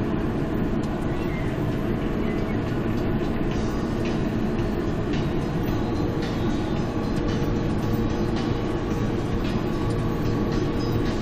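Tractor engine running steadily under load while pulling a plow, heard from inside the cab.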